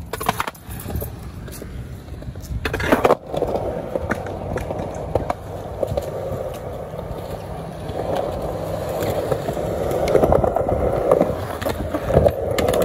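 Skateboard wheels rolling over concrete, a steady roar that grows louder toward the end, with sharp knocks of the board at the very start and about three seconds in.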